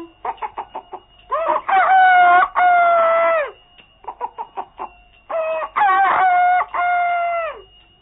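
Rooster crowing twice, each crow held for about two seconds and dropping away at the end, with each crow preceded by a quick run of short clucks.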